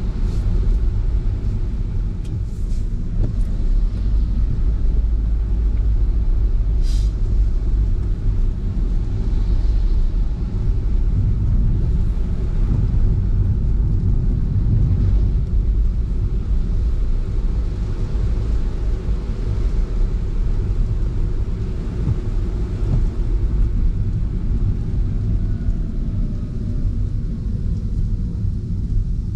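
A car driving on the road, heard from inside the cabin: a steady low rumble of road and engine noise. A brief high-pitched squeak comes about seven seconds in.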